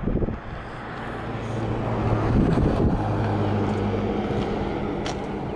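A motor vehicle's engine running nearby, a steady low hum that swells over the first two or three seconds and then slowly eases off.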